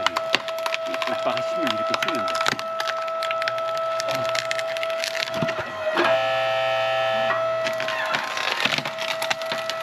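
Hydraulic log splitter forcing a log apart: wood cracking and splintering in many sharp snaps over the steady tone of the machine. About six seconds in, a chord of higher tones sounds for just over a second.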